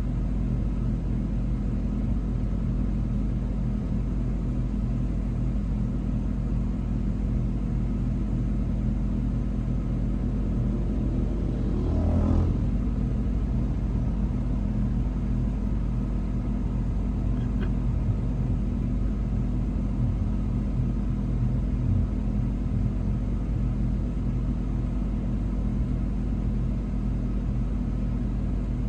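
Steady low rumble of a running train, with a brief louder noise about twelve seconds in.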